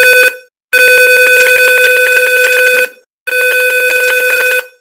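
Arduino piezo buzzer in the Tinkercad circuit simulator sounding a steady 500 Hz beep. One beep ends just after the start, a long beep lasts about two seconds, and another lasts about a second and a half. It is the LPG gas-leak alarm going off as the simulated gas reading climbs past its 200 threshold.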